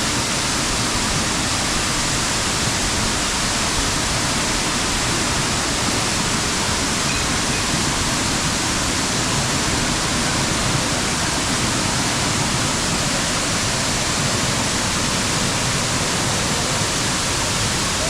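Waterfall pouring: a loud, steady rush of falling water with no change.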